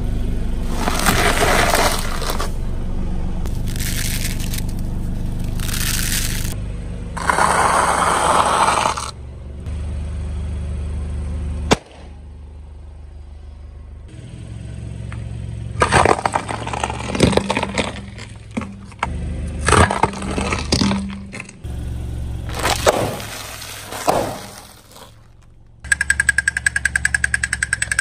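A car tyre rolls over objects on concrete, with the car's engine running low underneath. About halfway through a balloon bursts with a single sharp pop. Then bags of crunchy snack crisps crunch and crackle under the tyre in several bursts.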